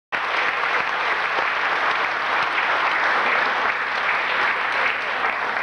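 Concert audience applauding, cutting in abruptly at full strength as a dense, even clatter of many hands.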